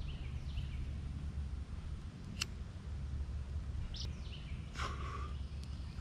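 Woodland ambience: small birds chirping now and then over a steady low rumble. About two and a half seconds in there is a sharp click as a pocket lighter is struck, and a short hiss near the end.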